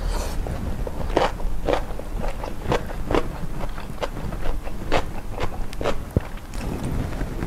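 Close-miked chewing of crunchy food: a series of sharp, crisp crunches, roughly two a second, over a steady low rumble.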